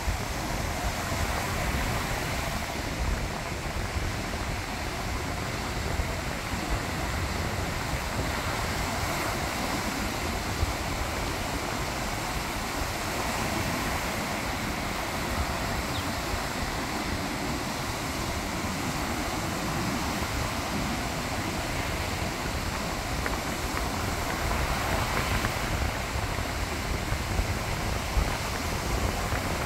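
Rough ocean surf: a steady, continuous wash of breaking waves, with wind buffeting the microphone.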